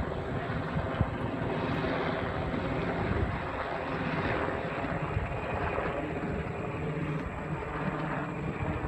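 Helicopter flying overhead, its rotor and engine a steady drone.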